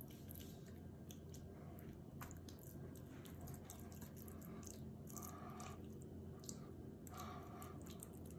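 Faint wet squishing and smearing of a hand rubbing yellow mustard over a raw pork butt, over a low steady hum.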